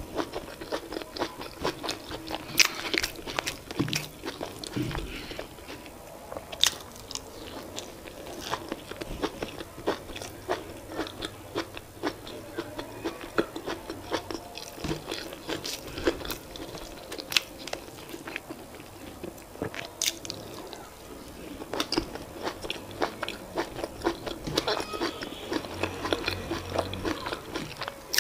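Close-miked chewing of boiled yam with leafy vegetable sauce, eaten by hand: a dense, irregular run of small mouth clicks and bites.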